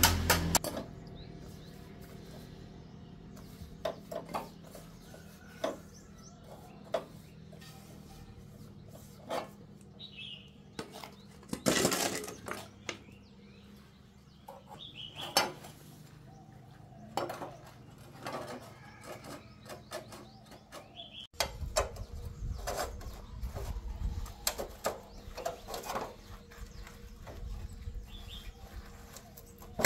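Scattered clinks, knocks and scrapes of steel concrete-mold parts being scraped clean and taken apart by hand. Faint bird chirps now and then, and a low rumble joins in the last third.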